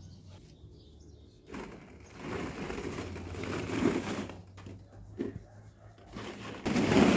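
Plastic balls in a children's ball pit rustling and clattering as someone moves through them, in stretches with short pauses and louder near the end.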